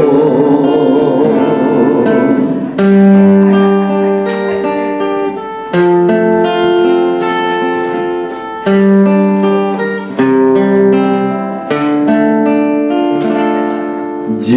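Instrumental break of a song, with a guitar playing the melody in phrases of plucked notes over the backing, and no singing.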